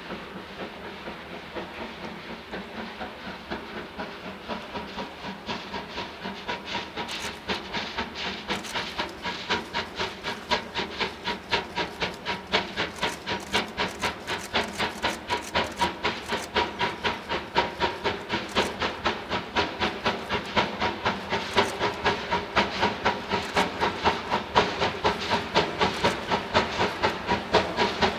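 Steam locomotive approaching, its exhaust chuffing in a quick, even beat over a hiss of steam, growing steadily louder as it comes closer.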